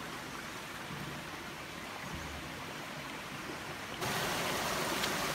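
Steady rush of running water, an even hiss that gets abruptly louder about four seconds in.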